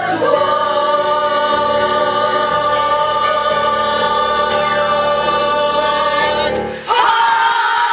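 Stage-musical cast singing together, holding a long final chord that breaks off a little before the end, when a new held chord comes in: the closing notes of the song.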